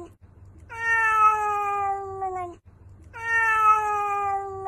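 Domestic cat meowing: two long drawn-out meows, each about a second and a half long and sliding slowly down in pitch.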